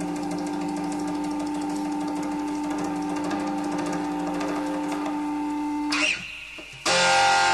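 A steady held chord ringing on at an even level, cut off about six seconds in; about a second later audience applause breaks out together with music.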